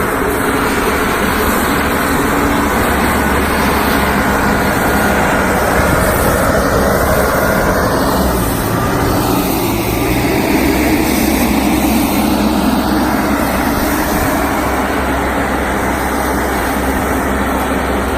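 Diesel engine of a self-loading concrete mixer truck running steadily and loudly, its tone shifting lower for a few seconds midway.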